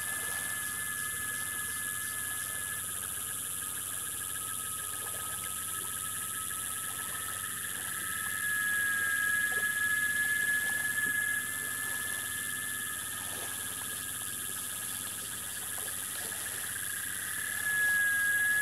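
Steady dusk chorus of calling insects and frogs: several high, continuous trills overlap. The chorus swells louder about eight seconds in and again near the end.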